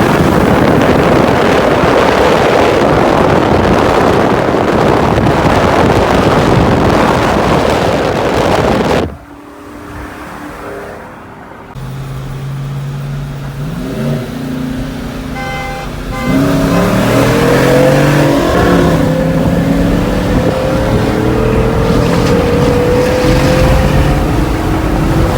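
Pickup truck run at speed with loud wind and road noise for about nine seconds, which drops away suddenly. The engine then accelerates hard through the gears, its pitch climbing, falling back at each shift and climbing again in a long slow rise near the end.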